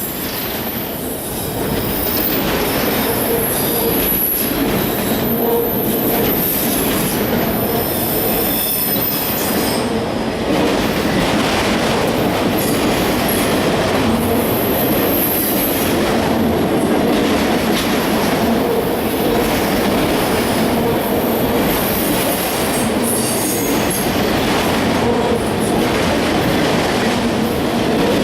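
Freight cars of a CSX train rolling past at close range: a steady loud rumble and rattle of wheels on rail, with clicks over the rail joints and thin high wheel squeal coming and going.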